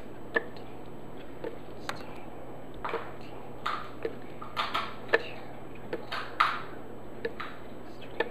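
Small irregular clicks and taps, about one or two a second, as softgel capsules are counted out by hand and dropped one at a time into a plastic Vitamix blender jar, with a few soft rustles of the capsules being handled.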